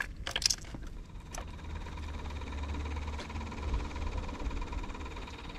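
A low engine rumble that swells and fades in the middle, with a few sharp clicks near the start.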